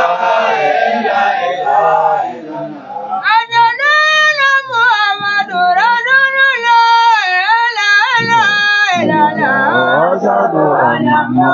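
Men singing a devotional chant: several voices together, then one high solo voice carrying the melody from about three seconds in, then the voices together again near the end.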